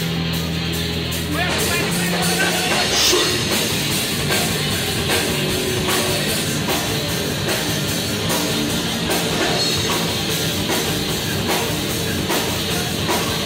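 Hardcore metal band playing live and loud: a driving drum kit under electric guitars, dense and continuous.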